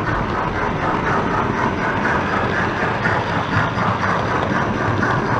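Steam locomotive sounds from a DCC sound decoder in a model Britannia 4-6-2: steady rhythmic exhaust chuffs over a continuous running rumble, as the model runs.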